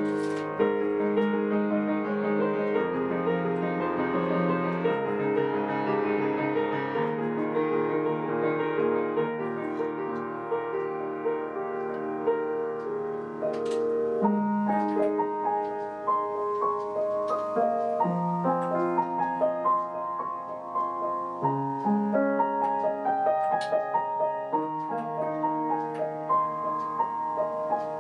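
Upright acoustic piano playing a slow piece in full, sustained chords. About halfway through, the playing becomes more detached, with separate chords and short breaks between them.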